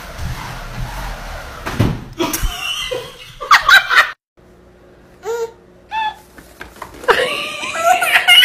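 Laughter and squeals, with a thump about two seconds in. After a brief drop, a few short high-pitched calls come over a faint steady hum, and loud laughter returns near the end.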